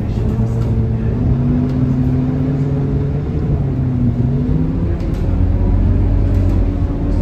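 Scania K230UB single-decker bus's diesel engine heard from inside the cabin as the bus moves slowly: the engine note rises about a second in, falls back a few seconds later, then settles into a steady low drone.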